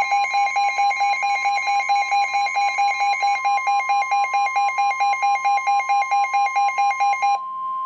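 Emergency weather alert: a steady, loud warning tone of about 1 kHz, the pitch of the NOAA Weather Radio alarm tone, with fast electronic beeping over it at about four to five beeps a second. The beeping stops near the end and the steady tone carries on alone.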